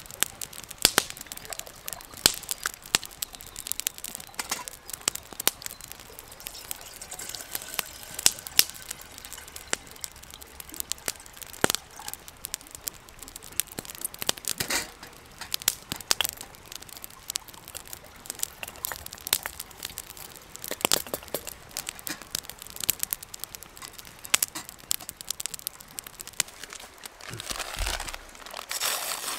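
Wood campfire crackling, with irregular sharp pops and snaps throughout. Near the end a brief, louder rush of noise.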